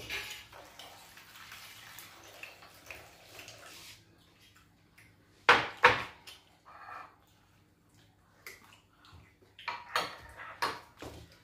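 Metal spoons stirring and scraping in bowls of garri soaked in water and clinking on ceramic plates at a meal, in scattered short clicks, with one louder sound about five and a half seconds in.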